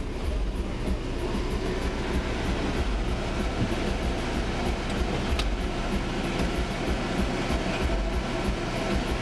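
Steady low rumble of a car's engine and cabin noise, heard from inside the car as it creeps forward in a queue. A couple of faint clicks come about five seconds in.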